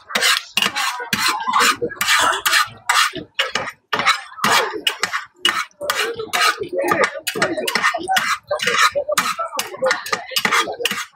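Metal cooking utensils clattering and scraping against cookware at a pancake stall, a fast, irregular run of sharp knocks and clinks.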